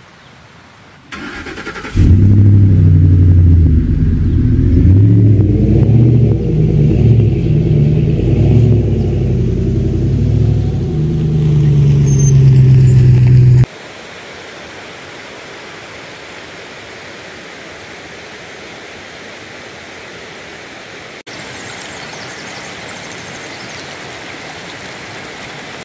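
A pickup truck engine runs loud and revs up and down for about twelve seconds. Then, after a cut, comes a steady rush of flowing water at a hot-spring pool, a little louder after a second cut near the end.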